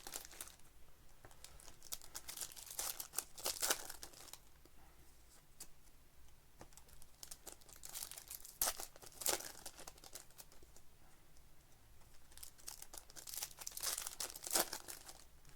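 Trading-card pack wrappers being torn open and crinkled, with cards handled, in bursts of rustling about three seconds in, near the middle and near the end.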